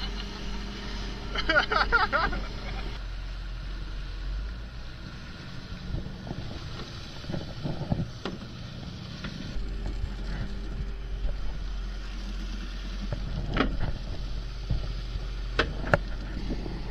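Fishing boat engine running steadily under wind and water noise as the boat travels across open sea, with a short call from a voice about a second in and a few sharp knocks near the end.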